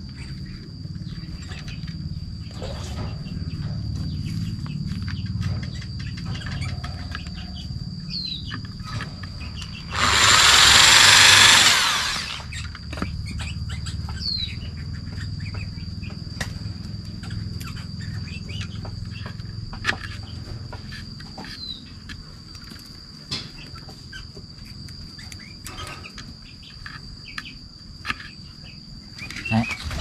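A small corded electric hand drill runs once for about two seconds, boring a hole in a wooden board, amid small clicks and taps of thin sticks being pushed into the board. A steady high insect drone and a few short bird chirps go on behind it.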